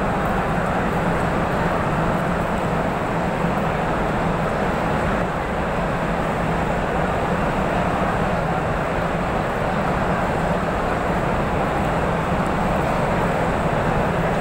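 Steady hubbub of a large crowd, many voices blended into one even noise with no single voice standing out.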